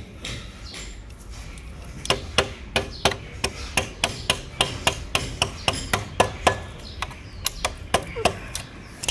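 Repeated metal-on-metal knocks: a wrench hammering the butt of a screwdriver held against the rear axle of a Bajaj Pulsar NS160 to drive the axle out. A few spaced taps come first, then steady sharp strikes about three a second from about two seconds in.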